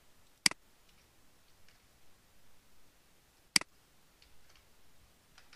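Two sharp single clicks at a computer, about three seconds apart, with faint light ticks between them.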